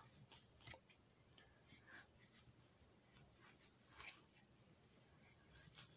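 Near silence with a few faint, scattered rubs and soft taps: hands pressing and folding risen bread dough on a floured plastic sheet.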